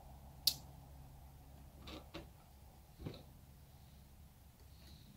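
A sharp click about half a second in, then a few soft knocks, from handling a cordless drill and the camper lift's metal parts, over a low steady hum.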